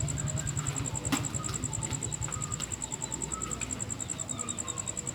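An insect trills steadily, a high-pitched, fast and even pulsing, over a low throbbing rumble.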